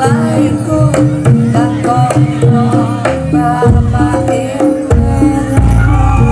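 Live Javanese barongan accompaniment: hand drums beating a fast rhythm under a stepped melody of tuned percussion, with a wavering higher melody line over it. A deep steady low sound comes in about five seconds in.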